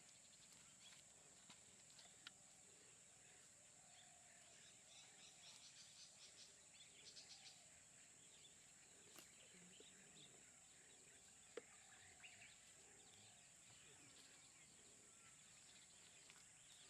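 Near silence: faint outdoor ambience, a steady high insect drone with scattered faint chirps and the odd soft click.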